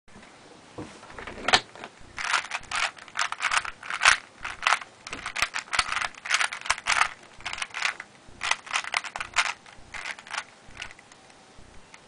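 A 3x3 Rubik's cube's plastic layers clicking as they are turned quickly by hand, being scrambled before a timed solve: fast, irregular bursts of clicks with a louder knock about one and a half seconds in, stopping about eleven seconds in.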